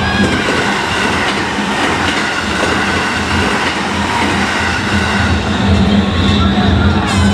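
Hanwa Line electric commuter train passing a level crossing, a steady loud run of wheel and running noise.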